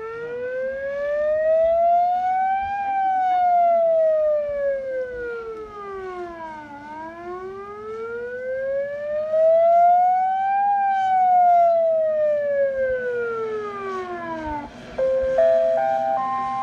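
Drone-mounted Comtel alarm siren wailing in two slow rise-and-fall sweeps, each about eight seconds, over a steady low hum. Near the end the wail cuts to a short rising run of stepped chime tones.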